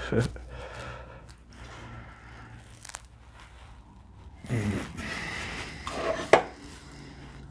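Handling noises at a workbench: rustling and scraping, with a light click about three seconds in and a sharp knock near six seconds in.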